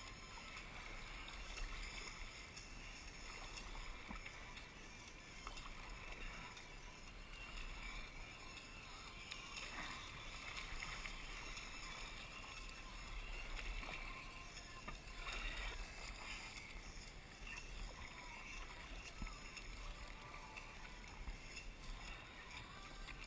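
Kayak paddling: a double-bladed paddle dipping and pulling through shallow sea water in repeated strokes, with water splashing and washing along the hull, faint overall.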